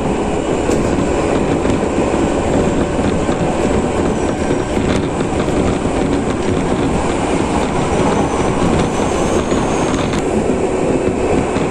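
Nagano Electric Railway 8500 series electric train (ex-Tokyu 8500) running at speed: a steady noise of wheels on rails and running gear, heard from inside the passenger car.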